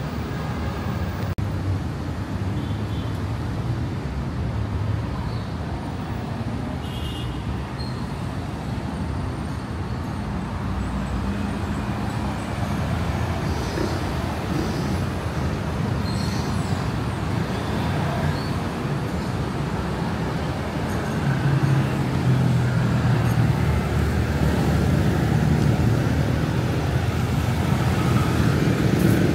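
City road traffic running steadily, a continuous wash of engines and tyres; a deeper engine rumble grows louder about two-thirds of the way through.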